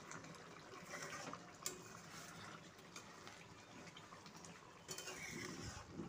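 Faint bubbling of chicken curry gravy simmering in an aluminium wok as a spatula stirs it, with a couple of light clicks. Near the end a thin stream of liquid is poured into the pan.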